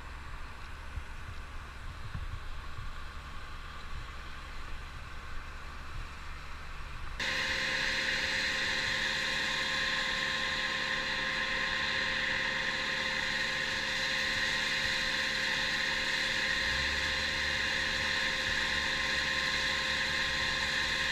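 Machinery running steadily: a low engine-like rumble at first, then, after an abrupt change about seven seconds in, a louder steady machine whine with several fixed tones that holds without a break.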